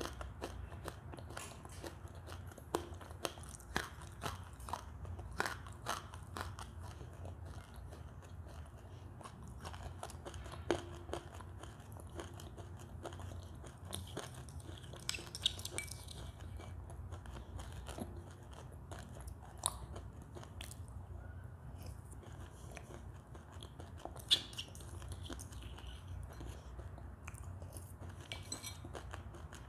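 Close-up crunching and chewing of wet white Turkistan clay paste in the mouth, with sharp irregular crunches scattered through over a steady low hum.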